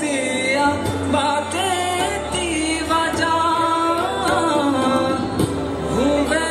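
A solo voice singing a melody with many sliding, wavering notes over a low, steady accompaniment.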